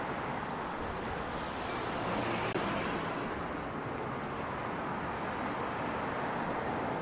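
Road traffic going by, a steady hum of passing cars that swells slightly a couple of seconds in.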